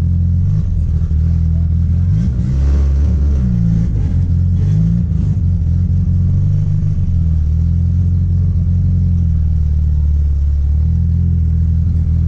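Car engine heard from inside the cabin: a steady low drone, with its pitch rising and falling between about two and five seconds in.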